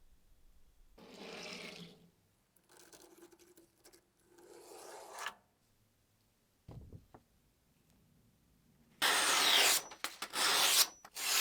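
Abrasive rubbing strokes on a surface, like hand sanding or filing: three softer strokes of about a second each, a short knock midway, then louder, longer strokes near the end.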